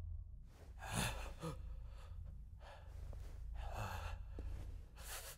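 A woman's gasping, shaky breaths, about half a dozen short ones in a row, as of a character catching her breath after a fall, over a steady low hum.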